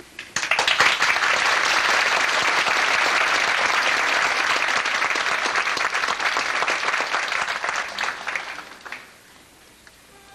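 Theatre audience applauding, a dense patter of many hands that starts suddenly and dies away about nine seconds in.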